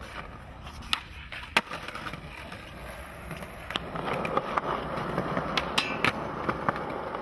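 Skateboard wheels rolling on concrete, louder from about four seconds in. A few sharp clacks of the board come early on, and a quick cluster follows as the rider pops a trick onto a metal rail near the end.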